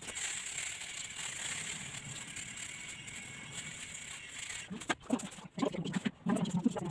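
Electric hair clipper running steadily for about five seconds, then switched off; after it come low, indistinct voices and a few sharp clicks.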